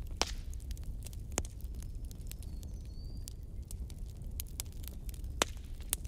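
Wood fire crackling, with irregular snaps and pops over a low steady rumble. The sharpest pops come about a quarter second in, about a second and a half in, and near the end.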